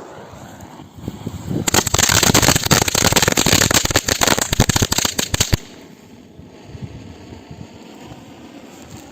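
A steady hiss, then from about two seconds in a fast, dense run of firecracker cracks lasting about four seconds that stops suddenly.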